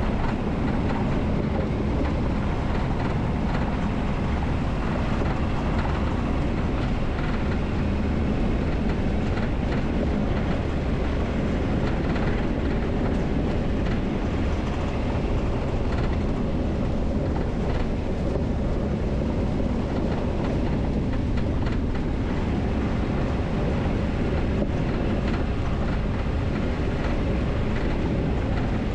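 Steady road rumble of a vehicle driving, with tyre and road noise and no change in pace.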